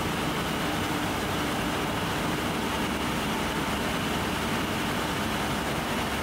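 Steady hum and hiss of workshop machinery running, with a few faint steady tones over it.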